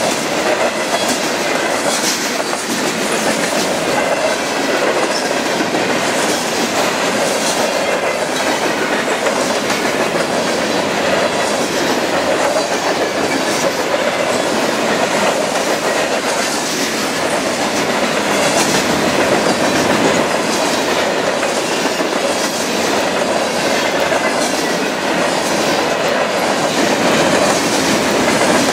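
Freight train of covered hopper cars rolling past: steel wheels running steadily and clacking over the rail joints.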